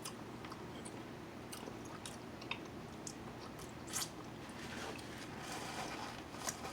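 A person chewing food close to the microphone, with scattered wet smacks and small clicks. A louder smack comes about four seconds in and another near the end.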